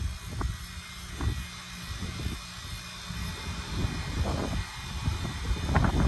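Late-2010s Goodman heat pump outdoor unit running in cooling mode: steady hum of the compressor and condenser fan. A few brief low buffets hit the microphone.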